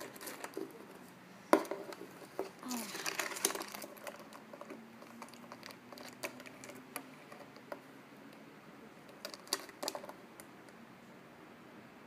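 Handling sounds of a pet nail clipper being worked at a rabbit's paw: one sharp click about one and a half seconds in, then about a second of rustling, and a few softer clicks near the end.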